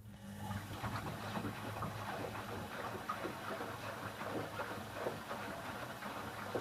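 Candy Aquamatic 1000T compact washing machine running an empty wash, starting up right at the start: a steady motor hum under a rough, churning noise from the turning drum.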